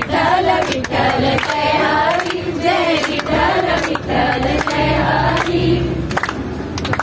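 A group, mostly women, singing together in chorus, with hand claps keeping a steady beat.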